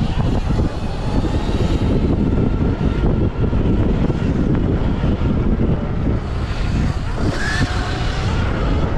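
Wind buffeting an onboard microphone as a stock Sur Ron X electric dirt bike is ridden fast over a dirt motocross track, with tyre and dirt noise. A faint electric motor whine runs underneath and rises briefly near the end.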